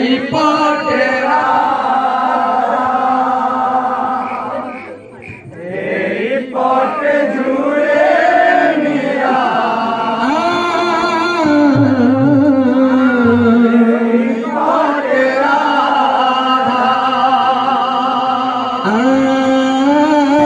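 A male voice singing Odia Gendola kirtan into a handheld microphone, with long held, wavering notes. The singing breaks off briefly about five seconds in.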